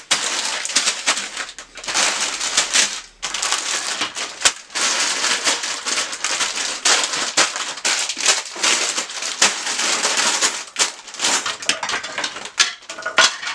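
Plastic bags full of building bricks rustling and crinkling as they are handled and laid out on a table, the bricks inside clicking against each other. The rustling comes in bouts with short pauses.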